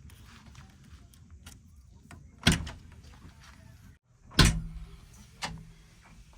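Two loud bangs about two seconds apart and a fainter one a second later, over a low engine rumble.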